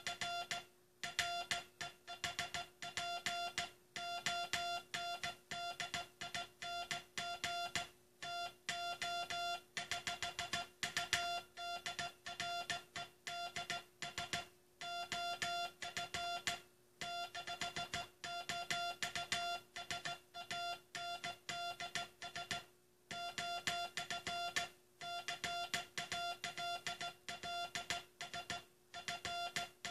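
Hand-sent Morse code (CW): a single steady-pitched tone keyed on and off in quick dits and dahs, with short pauses between words. It is the text of the last Morse message sent by the U.S. Coast Guard. A faint steady hum runs underneath.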